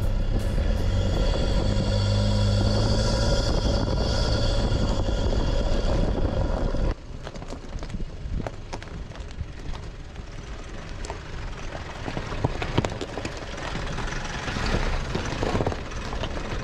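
Mitsubishi L200 pickup driving off-road: a steady engine drone, then an abrupt cut about seven seconds in to quieter rolling tyre noise with scattered clicks of stones on a gravel track.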